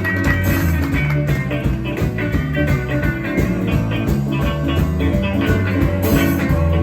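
Live rock-and-roll band playing an instrumental vamp, with electric guitar over a walking bass line and drums.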